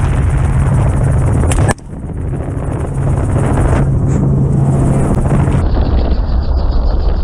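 Helicopter rotor and engine noise with wind rushing past the open door, a steady low throb. About a second and a half in, a single sharp crack, most likely a shot from the 6.5 Creedmoor rifle, after which the sound dips and builds back up.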